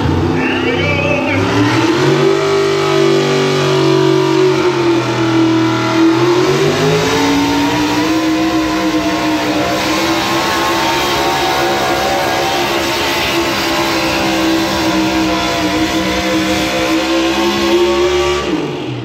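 Pickup truck engine revving hard under heavy load while dragging a truck-pulling sled. The revs climb in the first couple of seconds, sag about six seconds in as the load builds, creep back up, then drop off sharply near the end as the throttle is let off.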